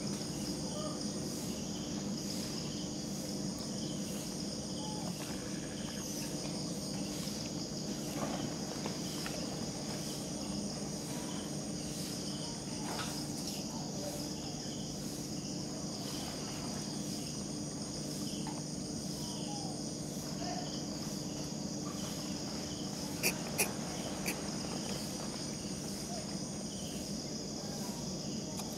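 Steady high-pitched chorus of insects with a faint regular pulse, over a low steady hum. Two or three short sharp clicks come about three-quarters of the way through.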